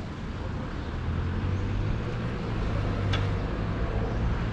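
Outdoor city ambience: a steady low rumble of road traffic, growing a little louder about a second in, with a faint short high sound about three seconds in.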